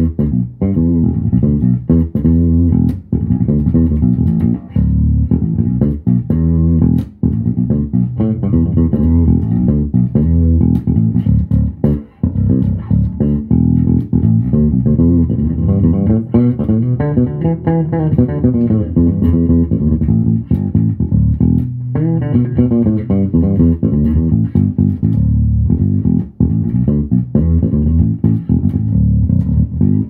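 Dingwall Z1 five-string fretless bass with FD3 pickups, played fingerstyle: a continuous bass line of plucked notes, with sliding pitch glides between notes in places.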